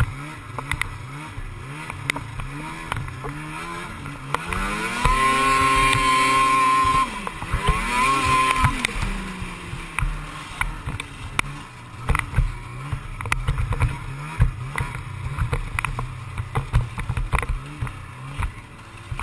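Snowmobile engine under way, its revs rising and falling with quick throttle changes, held high for about two seconds roughly a quarter of the way in and revved once more just after, then running at lower throttle with scattered short clicks.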